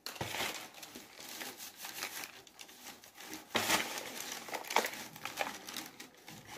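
A hand crumbling and sprinkling dry potting soil over freshly sown dragon fruit seeds in a plastic tub, a dry gritty rustling with a louder scrape about three and a half seconds in.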